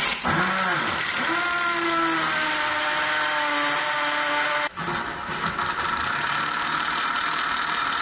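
Cordless impact driver running under load, driving screws through a steel drip sill into blockwork, its pitch sagging slowly as it works. It stops abruptly about five seconds in and starts again straight away.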